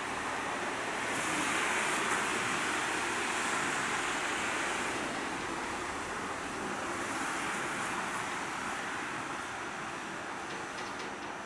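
Steady rushing noise of a Shonan Monorail suspended train approaching on its rubber tyres inside the overhead steel track beam, mixed with street traffic below; it swells about two seconds in and again later, with a few light clicks near the end.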